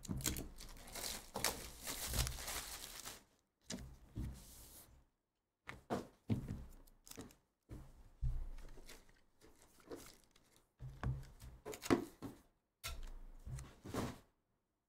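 Hands tearing the plastic shrink-wrap off a trading-card hobby box and opening its cardboard lid and inner packing: crinkling, rustling and soft thunks in irregular bursts with short pauses between them.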